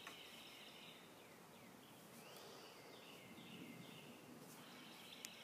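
Near silence: faint outdoor background with thin, high chirping calls coming and going.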